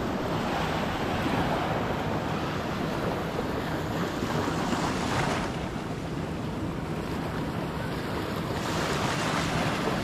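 Steady wind noise on the microphone over small waves washing onto a sandy shoreline, swelling slightly a couple of times.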